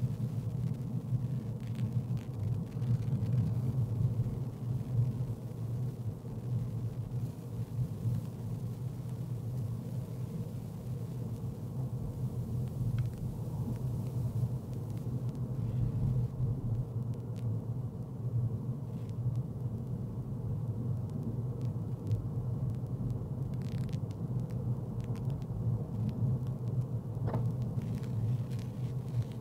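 Steady low rumble of a car's engine and tyres, heard from inside the cabin while driving along a street.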